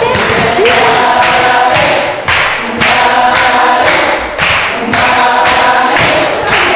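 A group of voices singing together in chorus over a steady beat of about two strokes a second.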